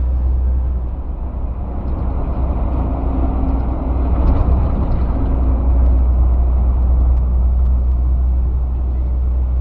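Steady low engine and road drone of a tanker truck on the move, heard from inside the cab, growing a little louder in the middle.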